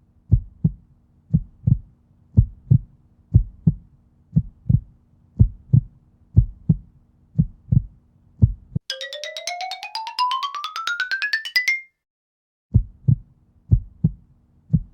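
Heartbeat sound effect: pairs of low thumps about once a second over a low hum. It is broken after about nine seconds by a buzzy whine rising in pitch for about three seconds, then a short silence, and the heartbeat starts again.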